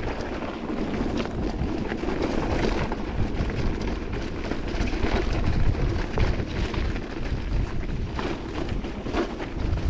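Wind buffeting the action camera's microphone while an e-mountain bike rides over rough ground, with a steady low rumble and scattered knocks and rattles.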